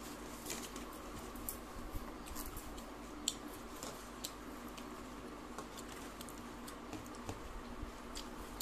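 Eating rice and mutton curry by hand: fingers squish and mix rice on a plate, with chewing, making irregular small clicks and squishes. The sharpest click comes about three seconds in.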